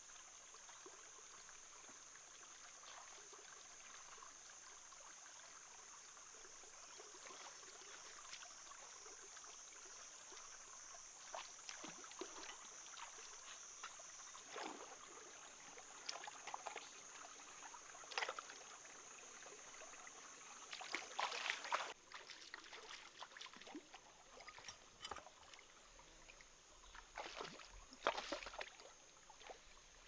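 Hands splashing and sloshing in a shallow stream among rocks, in short bursts that come more often and grow louder in the second half, loudest twice near the end; the water trickles steadily, with a steady high-pitched tone throughout.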